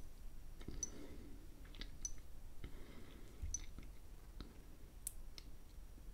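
Short, light clicks at irregular intervals, roughly one a second, from tapping through a Sony Xperia XA1 smartphone's setup screens.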